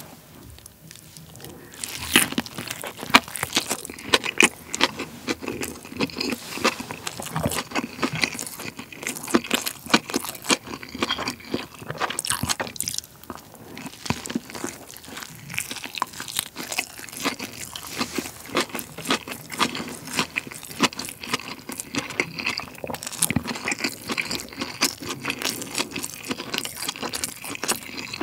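Close-miked biting and chewing of a whole, uncut cheese gimbap roll (rice and cheese wrapped in dried seaweed): a dense run of wet mouth clicks and smacks that starts about two seconds in.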